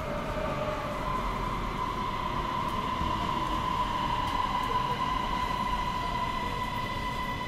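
Electric metro train pulling into an underground station behind platform screen doors, rumbling with a steady high whine that rises slightly in pitch in the first second and then holds.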